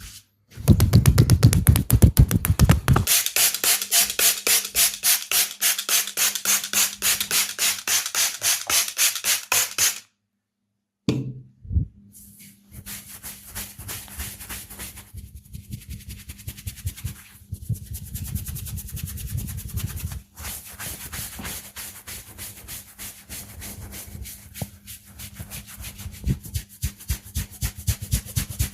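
Massage hands striking and rubbing skin in a fast, even rhythm of several strokes a second. The strokes cut off abruptly about ten seconds in, then resume more softly a couple of seconds later.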